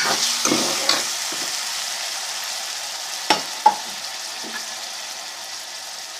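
Browned onions and garlic-ginger paste sizzling in hot ghee in a pan while being stirred, with the spoon knocking against the pan a few times. The sizzle slowly dies down, and the two sharpest knocks come a little past the middle.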